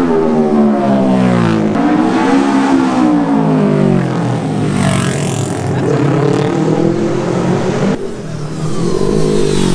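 Road-racing motorcycles passing at full speed one after another, each engine's note dropping in pitch as it goes by.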